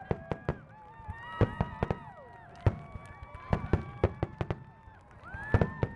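Fireworks shells bursting in quick succession, several sharp bangs a second, with spectators whooping over them in long held high calls that fall off at their ends.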